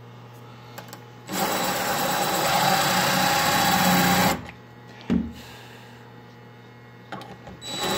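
DeWalt 1/4-inch impact driver spinning a glass-and-tile bit into a pane of glass. It runs steadily for about three seconds and then stops, followed a second later by a short thump.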